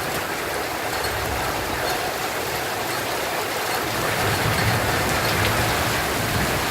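Heavy rain coming down, a steady hiss of rainfall that grows a little louder about four seconds in, with a low rumble underneath.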